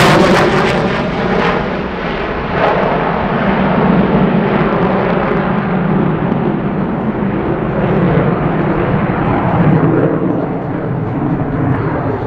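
EA-18G Growler's twin afterburning turbofans running loud as the jet pulls up and climbs away on afterburner. The hiss is bright at first and turns duller within the first couple of seconds as it recedes, leaving a steady jet noise.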